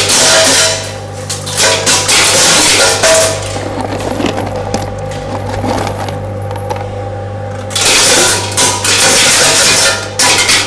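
Tornado crusher running with a steady motor hum, breaking out into loud rattling and clattering in three spells, during the first second, from about two to three and a half seconds in, and from about eight to ten seconds in, as hard chunks are smashed by its blades.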